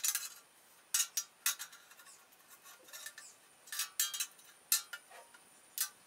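A cloth duster on a mop stick rubbed and knocked along the blades of a ceiling fan: several short scrapes and clicks at uneven intervals.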